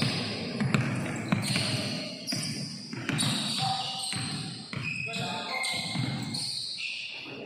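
A basketball bouncing on a hardwood gym floor during a pickup game, with sneakers squeaking as players run and cut.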